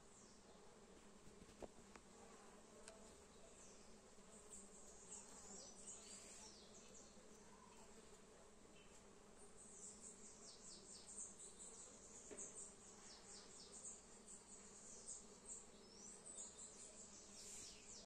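Faint, steady buzzing of bees around flowers, a low hum. From about halfway, many short high chirps join in.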